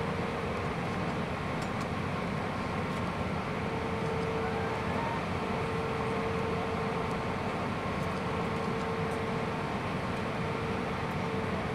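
Steady cabin noise inside an Airbus A320 on final approach: engine and airflow rush with the flaps extended, under an even mid-pitched whine.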